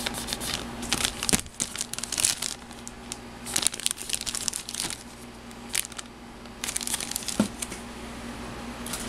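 Clear plastic bags crinkling as bagged plastic model-kit sprues are handled and shuffled, in uneven spells of crackling with short lulls between.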